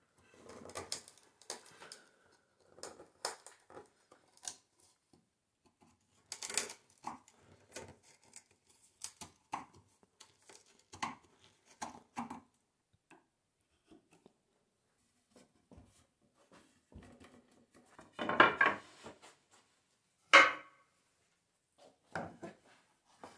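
Narrow chisel paring and levering out waste in a small mortise cut in softwood: scattered light clicks, taps and short scrapes. Near the end come a louder rustling bump and then a sharp knock of wood against the workbench.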